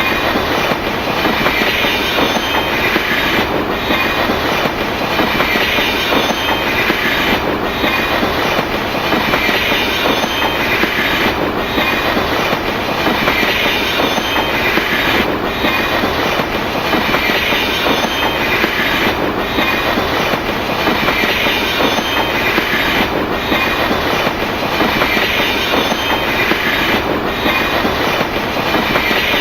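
Railway train running steadily along the track: a continuous rolling rumble and hiss with a regular beat about every two seconds, like wheels passing over rail joints.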